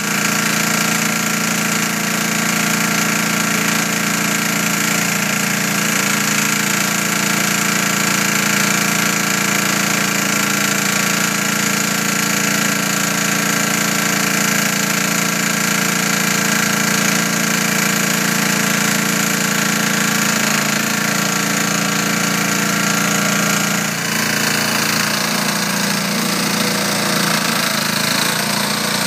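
AXO Work concrete mixer with self-loading shovel running under power: a steady engine drone with a continuous mechanical rattle. The sound shifts slightly about 24 seconds in.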